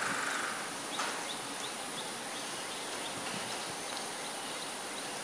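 Quiet outdoor ambience: a steady hiss with a faint knock about a second in and a short run of faint, quick chirps.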